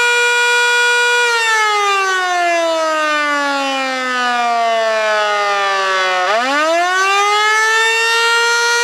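Federal Signal Model 2 electromechanical fire siren sounding the attack signal: a steady wail that winds slowly down in pitch for about five seconds, then winds quickly back up in about two seconds and holds steady again.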